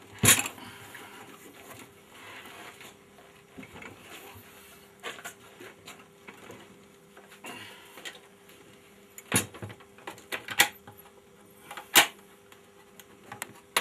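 Knocks and clunks of a Victor 16 mm sound projector being handled and set down in its case: a sharp knock just after the start, scattered lighter ones, and two loud knocks in the last few seconds.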